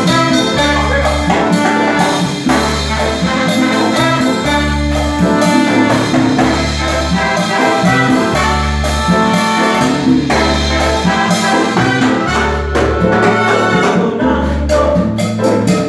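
Live Latin band playing: trumpets and trombone over congas, drum kit, bass and keyboard, with a repeating bass figure.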